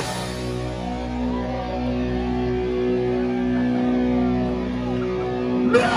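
Live hardcore band's distorted electric guitars holding one ringing chord, with crowd voices shouting over it. Just before the end, a sharp loud hit and a yell as the band comes crashing back in.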